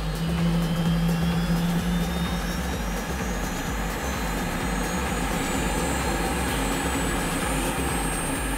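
Helicopter running, with a high whine that climbs steadily in pitch over a steady low pulse.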